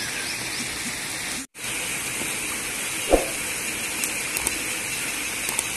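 Steady rushing hiss, broken by a brief dropout about a second and a half in, with a single knock about three seconds in.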